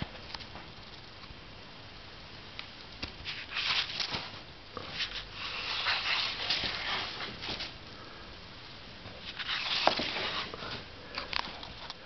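Soft rustling with small sharp clicks, in three bursts about three, six and ten seconds in.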